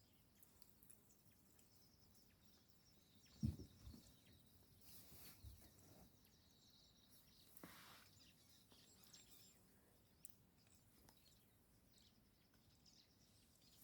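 Near silence of open bush: faint bird chirps over a low hiss, with one soft low thump about three and a half seconds in and a brief rustle near eight seconds.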